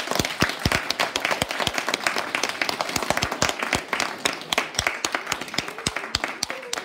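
Audience applauding, with many hands clapping densely and then thinning out near the end.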